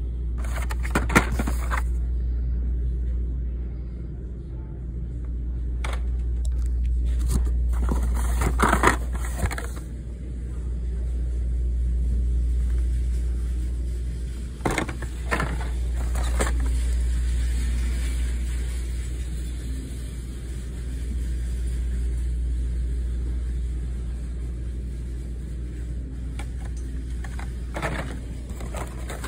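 A steady low rumble that swells and fades slowly, with a few brief crinkles and scrapes of plastic blister cards and a cardboard case being handled.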